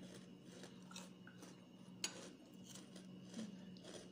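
Faint clicks of a metal spoon against a plate, with one sharper clink about two seconds in, over a steady low hum.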